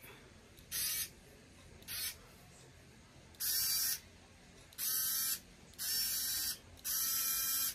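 Skil 4V cordless screwdriver's small electric motor and gearbox whirring with no load as the trigger is pressed and released. There are two brief blips, then four longer runs of about half a second each.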